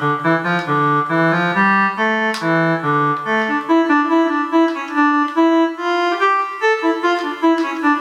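Reed organ preset of the Travel Sax 2 electronic saxophone playing a melody of sustained, reedy organ notes, moving to quicker, shorter notes in the second half.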